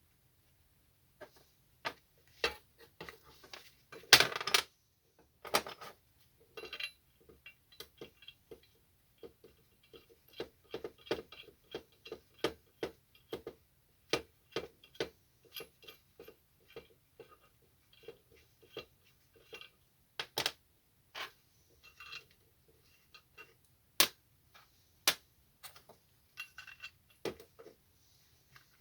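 Small metal parts and tools clicking and clinking against each other in many quick, irregular taps, with a few louder knocks, as an old oxy-acetylene cutting torch is taken apart by hand.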